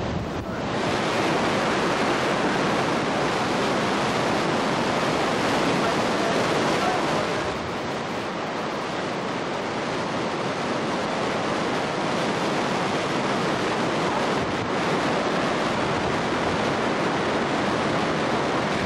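Steady rush of water pouring through Folsom Dam's failed spillway gate: an even, unbroken noise that eases slightly about eight seconds in.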